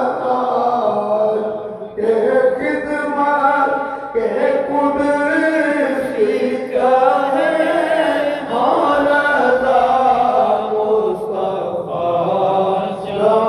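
A man chanting a devotional Islamic recitation in long, melodic, drawn-out phrases.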